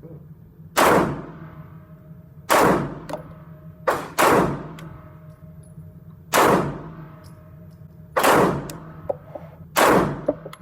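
Glock pistol firing seven shots at a steady, unhurried pace, two of them in quick succession about four seconds in, each with a ringing echo.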